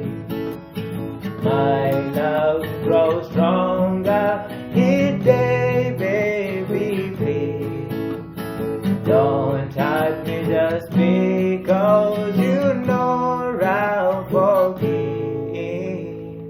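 Acoustic guitar strummed in a slow song, with a sung vocal line over it and no clear words. About 15 seconds in, the guitar plays a last chord that rings on and fades out.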